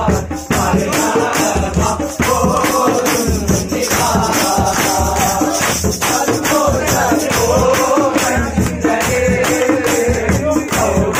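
A group of men singing a Malayalam kaimuttipaattu (hand-clap song) in chorus, with hand claps, conga drums and a jingling tambourine keeping a fast, steady beat.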